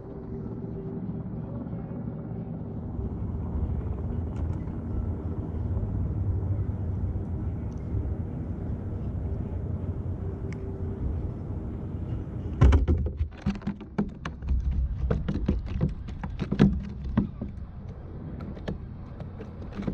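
Steady low rumble while a spinning reel is wound in on a kayak; from about two-thirds of the way in, a scattered run of sharp clicks and knocks from handling the reel and rod against the kayak.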